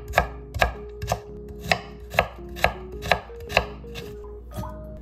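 Kitchen knife chopping carrot slices into thin strips on a bamboo cutting board, the blade striking the board about twice a second before stopping a little over halfway through.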